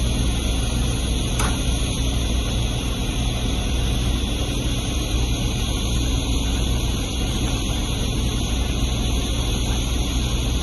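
Heavy diesel machinery running steadily, an even low rumble with a constant hiss of noise over it.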